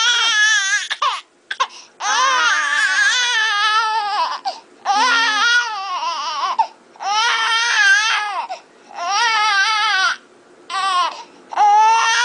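A young infant crying hard in a fit: about six high, wavering wails, each one to two and a half seconds long, broken by short pauses for breath.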